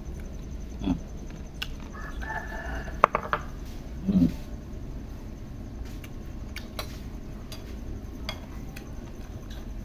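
Quiet eating: a few sharp clicks of spoon or chopsticks on a bowl and soft mouth sounds, with a chicken calling briefly in the background about two seconds in.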